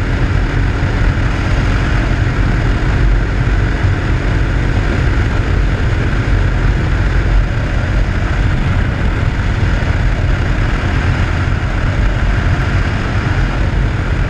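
RPS Hawk 250 dual-sport motorcycle running at a steady highway cruise, its engine under heavy wind rush on the microphone.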